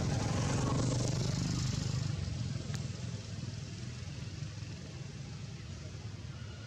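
Low rumble of a motor vehicle engine running nearby, louder for the first two seconds or so and then easing to a steadier background hum.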